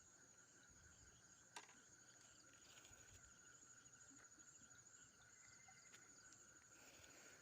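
Faint, steady high trilling of night insects, with one sharp click about a second and a half in.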